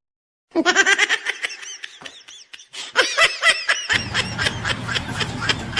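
Laughter edited in as a sound effect: a quick run of high-pitched laughing syllables that starts suddenly out of dead silence. About four seconds in, a steady low rumble with faint ticks comes in underneath.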